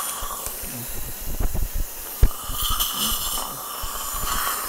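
A steady hiss from dental surgery equipment runs throughout, under muffled bumps and rubbing of the camera against a surgical gown. One sharp click comes a little past two seconds in.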